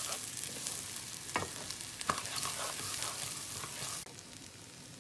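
Uncooked rice grains and sliced red onion frying in oil in a pot, sizzling, while a wooden spoon stirs and scrapes through them with scattered clicks. The sizzle drops suddenly quieter about four seconds in.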